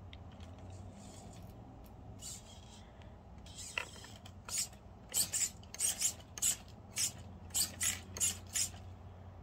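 Reefs RC Raw 500 steering servo on an RC rock crawler swinging the front wheels back and forth, each throw a short high-pitched buzz. The buzzes come a few at a time at first, then about a dozen in quick succession over the last four seconds. It is working under load with the crawler propped against a wall but is not binding.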